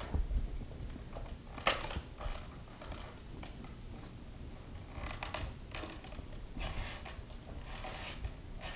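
A white plastic hand-crank spiralizer and a butternut squash neck being handled and reset on it: one sharp click a little under two seconds in, then scattered soft clicks and scrapes.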